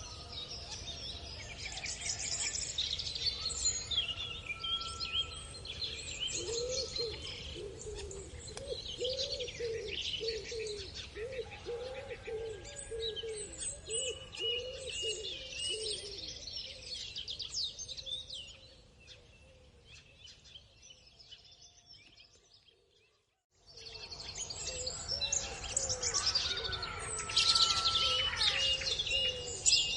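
Birds chirping and calling, many overlapping high chirps, with a run of lower, evenly repeated calls through the middle. The sound drops away to a brief near-silent gap about three-quarters of the way through, then the chirping starts again.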